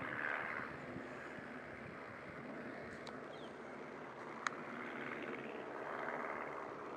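Small single-engine propeller airplane droning faintly and steadily as it flies low overhead. A single sharp click about halfway through.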